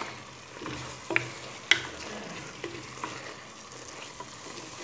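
A wooden spoon stirring chicken and diced vegetables frying in a spiced tomato sauce in a metal pot, with steady sizzling and a few sharp knocks of the spoon against the pot, the two clearest a little over a second in.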